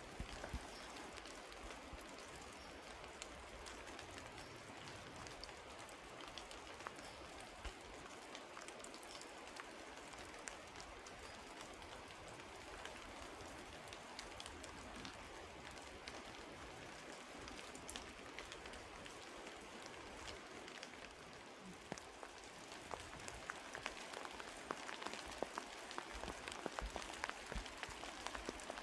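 Light, steady rain falling in a redwood forest: a soft hiss of rainfall with a patter of individual drops, which grows denser near the end.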